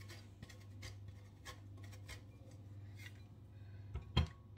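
Cheese grated on a handheld stainless steel box grater: short, irregular rasping strokes as a hard block is scraped across the blades. A louder knock comes about four seconds in.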